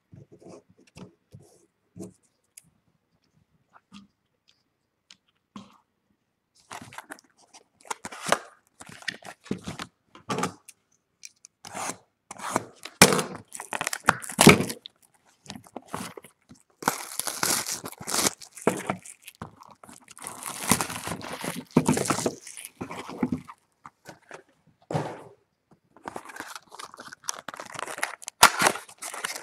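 Packaging on a box of trading cards being torn and crinkled open by hand: a few light clicks at first, then from about seven seconds in irregular spells of tearing, crackling and rustling.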